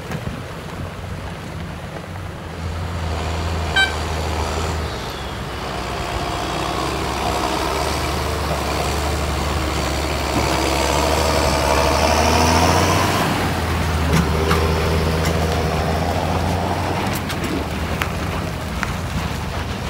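John Deere tractor's six-cylinder diesel engine pulling under load as it tows a heavy trailer through deep mud. The steady drone grows louder as the tractor comes past, peaking about two-thirds of the way in, with churning tyre and mud noise and a couple of brief sharp knocks.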